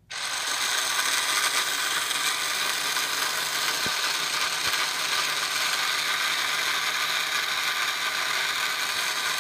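Lionel Steam Clean and Wheel Grind Shop's wheel-grind assembly switching on suddenly and giving a steady, harsh grinding noise, the simulated sound of a locomotive wheel being ground.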